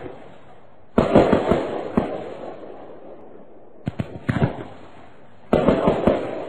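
Fireworks going off in three volleys. There is a loud cluster of bangs and crackling about a second in, a shorter cluster of pops around four seconds, and another loud cluster near the end.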